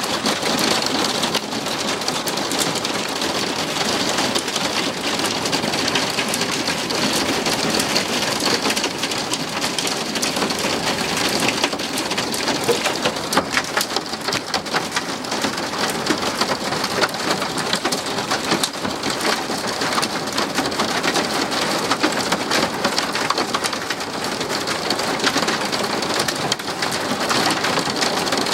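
Hailstones pelting down in a dense, steady patter of sharp impacts, heavier for a while in the middle.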